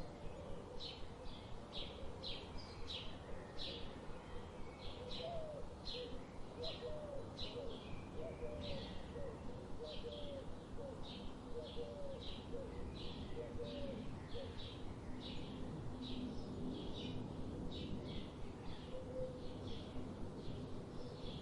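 A songbird repeating a short high chirp about twice a second, over a steady low rush of flowing river water. A few low, wavering coo-like notes sound in the first half.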